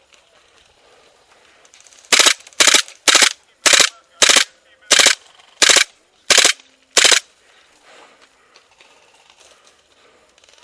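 Airsoft electric rifle firing nine short bursts in about five seconds, each a quick rattle of several shots.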